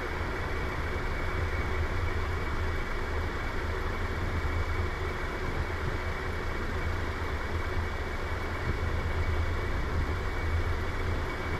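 Steady low mechanical hum of a running motor under a constant hiss, unchanging throughout.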